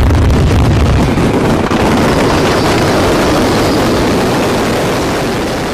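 Dense, continuous roar and crackle of a big mass of fireworks going off at once, with a heavy rumble for about the first second, then a hissing crackle that slowly fades toward the end.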